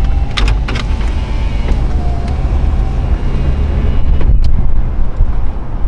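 Engine and road rumble heard inside a vehicle's cabin while it drives slowly, with a few sharp clicks or rattles: two about half a second in and one past four seconds.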